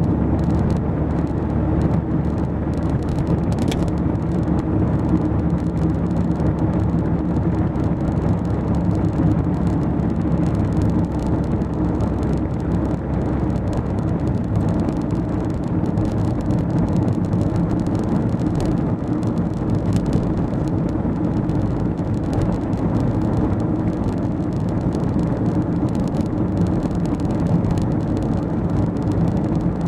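Steady engine and road noise of a car driving along, heard from inside the car as a low, even drone.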